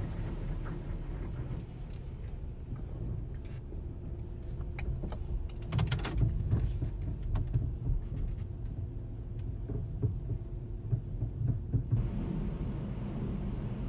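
A car idling, a steady low rumble heard from inside the cabin, with scattered light clicks and knocks in the middle stretch.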